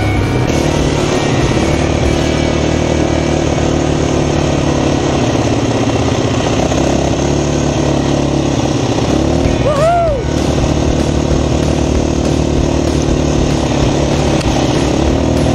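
ATV (four-wheeler) engine running steadily under way on a gravel trail, heard from on the machine, with a constant noise haze over it. About ten seconds in, a short pitched tone rises and falls.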